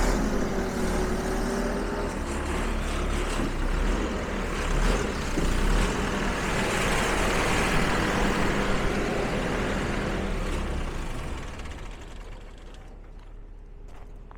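A heavy vehicle's engine running steadily, then fading away about eleven seconds in, leaving a few light ticks.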